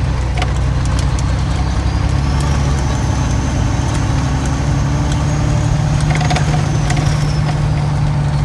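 Truck engine running under way, heard inside the cab, its low note stepping up slightly about two seconds in. Scattered clicks and rattles sound throughout, and a faint high whine rises, holds, then falls away near the end.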